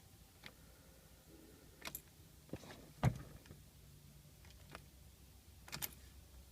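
Scattered sharp clicks in the cabin of a 2007 Scion tC that won't start, with a louder knock about three seconds in, a double click near the end and a faint brief hum in between: the car's electrics failing on a weak battery.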